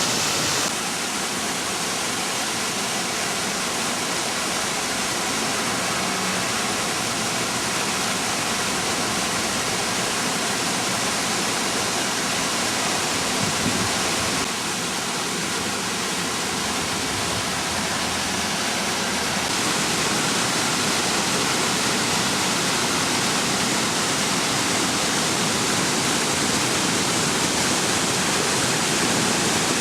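Rain-swollen water rushing steadily down a ravine, a dense unbroken roar of falling and running water that shifts slightly in level a few times.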